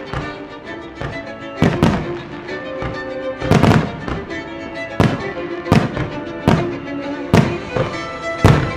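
Aerial firework shells bursting in a string of sharp bangs, about one a second and some in quick pairs, each trailing an echo, with music playing underneath.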